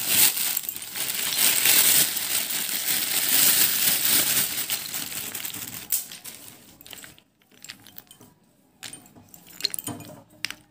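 Hard slate pieces clattering and clinking as a bagful is tipped out onto a heap. After about six seconds it dies down to a few scattered clicks as pieces are picked through.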